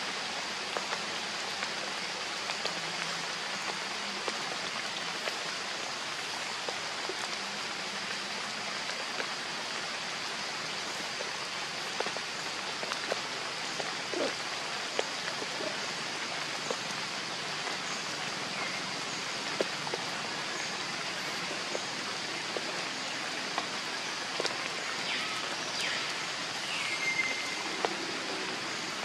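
Steady hiss of light rain falling on forest leaves, with scattered small ticks of drops. A short high chirp sounds near the end.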